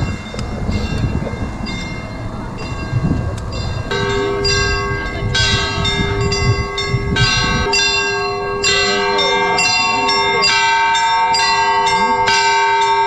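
Bells ringing, struck over and over in quick succession with their many tones hanging on. The ringing grows loud about a third of the way in, over a low rumbling noise that drops away about halfway.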